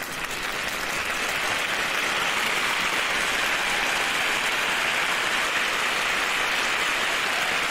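Steady applause from a crowd, an even patter of many hands clapping.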